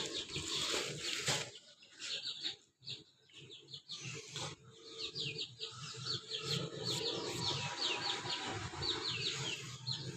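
Small aviary birds chirping: a quick run of many short, high, falling chirps, busiest in the second half, with some low rustling underneath.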